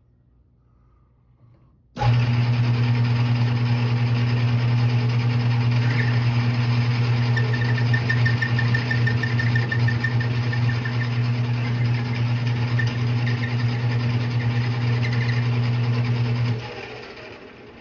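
Metal lathe switched on about two seconds in, running with a steady mechanical hum for about fourteen seconds, then switched off and spinning down near the end.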